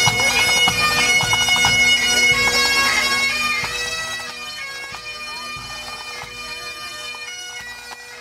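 Pipe band playing: Highland bagpipes over their steady drone, with drums beating beneath. The sound drops back about four seconds in and then fades out gradually.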